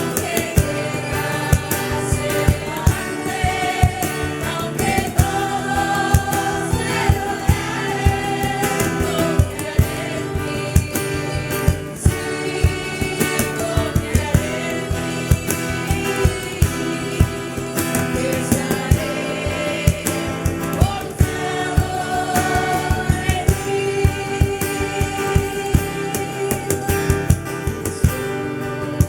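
Worship song sung by a group of voices, with instrumental accompaniment keeping a steady beat.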